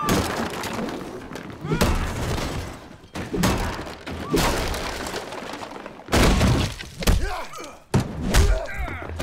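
Film fight sound effects: a string of about eight heavy hits and crashes, with things breaking and shattering after several of them.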